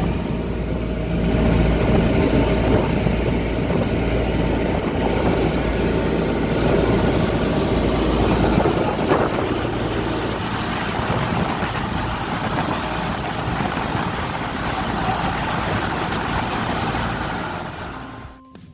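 Small motorboat under way: its engine running steadily under the sound of water rushing and splashing along the hull. It fades out near the end.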